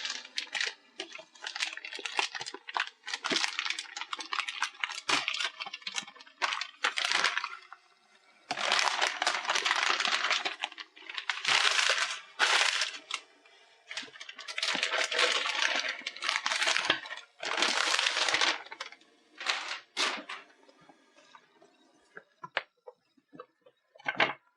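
Plastic shrink-wrap being torn and crinkled off a cardboard retail box, in repeated bursts of crackling, followed by a few light clicks and taps near the end.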